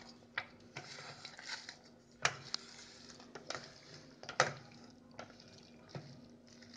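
Metal spoon mixing manchurian balls into thick gravy in a stainless steel container: wet squelching with irregular scrapes and clinks against the steel, the sharpest about two and four seconds in.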